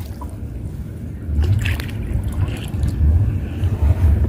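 Wind rumbling on the microphone in gusts, with light water splashing and trickling around a mesh fish keep net dipped over the side of a small boat.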